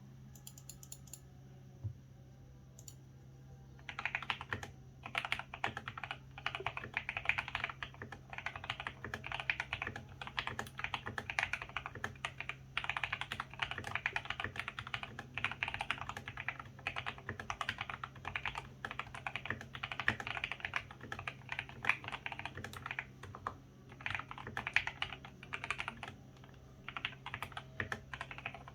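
Typing on a GK68X mechanical keyboard with lubed Gateron Yellow linear switches, ABS keycaps, a plastic case and foam, modded for a deep "thocky" sound. Continuous runs of fast keystrokes begin about four seconds in, with brief pauses between runs.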